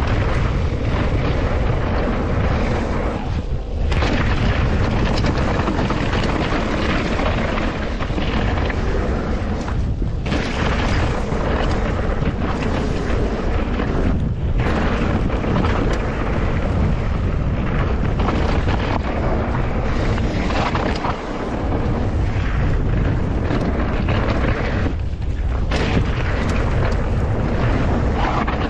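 Heavy wind buffeting on the camera microphone during a fast mountain-bike descent, mixed with tyre noise on wet gravel and dirt. The noise drops briefly a few times.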